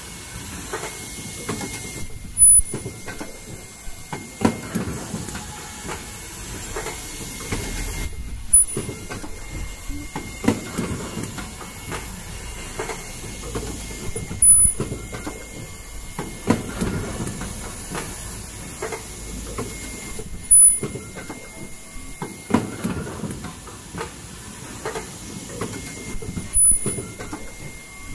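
Fully automatic N95 cup mask machine running, with a clatter and hiss from its chain conveyor and stations repeating evenly about every two seconds as it cycles, over a steady mechanical hum.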